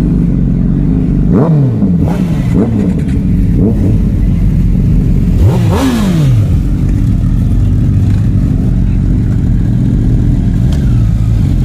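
Superbike engine running with four quick throttle blips, each rising and falling in pitch; the blip about halfway through is the loudest.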